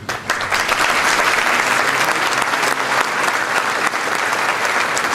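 A large audience applauding. The clapping starts abruptly and then holds steady.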